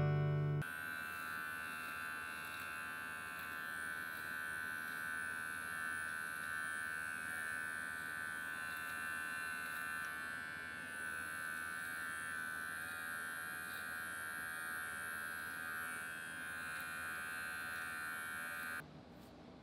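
Red electric beard clipper running with a steady buzz while it trims the mustache. It cuts off abruptly near the end.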